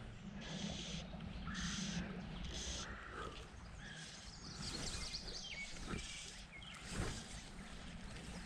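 Birds chirping and singing over the steady wash of a clear river, with a few sharp clicks near the end.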